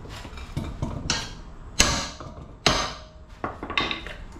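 A hammer striking metal suspension parts to work the old strut loose: two sharp, ringing blows just under a second apart in the middle, among several lighter knocks and clinks.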